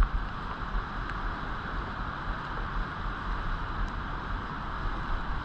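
Steady rush of river current, with wind buffeting the microphone as an uneven low rumble.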